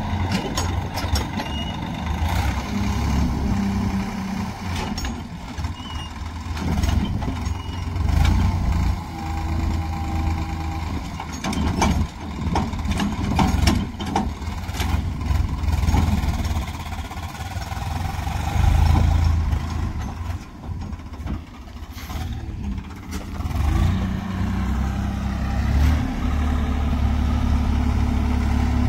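Diesel tractor engine running, louder and quieter by turns, with scattered knocks and clatters; in the last few seconds it settles into a steadier, higher-pitched run.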